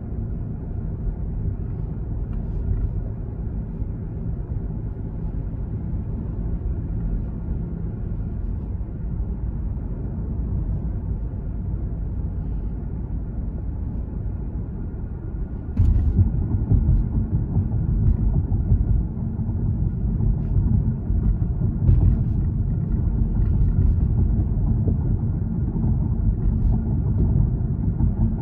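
Low, steady road and engine rumble of a moving car. A click comes a little past halfway, after which the rumble is louder.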